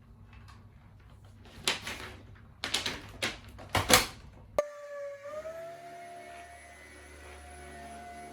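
A few short clattering, scraping noises, spaced over about two and a half seconds. Then background music starts abruptly about halfway through.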